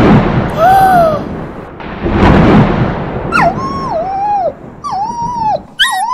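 Two thunderclap crashes about two seconds apart, then a run of high, falling dog whimpers.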